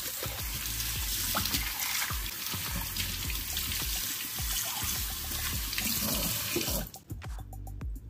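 Kitchen tap running into a stainless steel sink while a borosilicate glass dish is rinsed by hand under the stream; the water cuts off suddenly about seven seconds in. Background music underneath.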